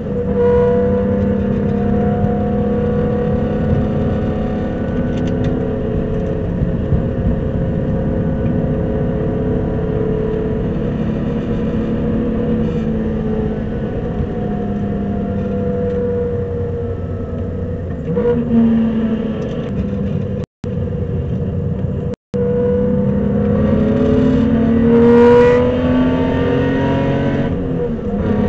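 Supercharged BMW E46 M3's S54 straight-six running hard on track, its pitch climbing and dropping again and again through acceleration, gear changes and lifts. The sound cuts out completely twice, very briefly, about two-thirds of the way through.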